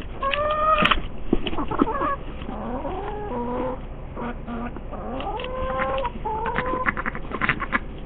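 Hens clucking and calling: a steady run of short pitched calls, some rising, a few held for about a second.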